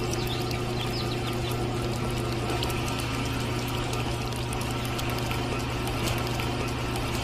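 Small electric motor running steadily with a low hum and a fast, dense rattle of ticks.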